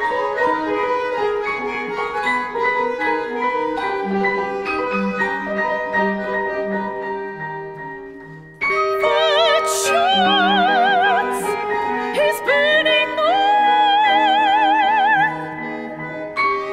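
Contemporary chamber ensemble of mallet percussion, piano and winds pulsing in quick repeated notes that thin out and fade. About halfway through a soprano comes in loudly over the ensemble, holding long notes with wide vibrato and sliding up into them.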